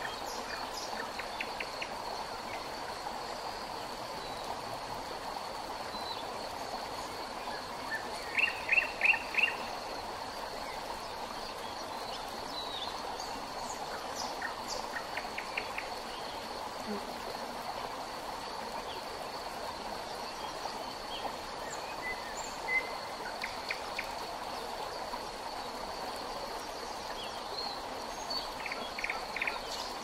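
River water flowing steadily, with a continuous thin high insect hum over it. Songbirds call in short runs of quick chirps several times, loudest in a run of four notes about eight to nine and a half seconds in.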